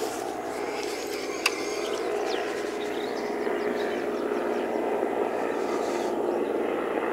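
A steady, distant engine drone, with a few faint bird chirps and one sharp click about one and a half seconds in.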